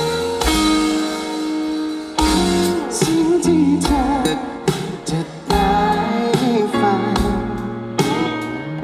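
A live rock-pop band playing a song: a singer over guitars, with regular drum hits.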